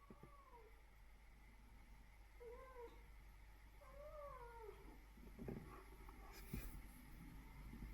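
An adult domestic cat meowing three times, short calls that slide down in pitch, the last one rising first and then falling. A few soft knocks follow near the end.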